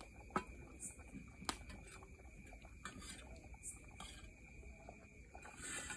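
Quiet night ambience: a steady high insect drone, with a few sharp small clicks and knocks.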